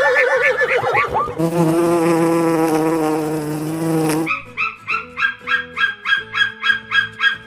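A honeybee buzzing steadily at an even pitch for about three seconds, stopping abruptly. It comes after a brief run of quick falling calls and is followed by a fast, even series of short repeated sounds.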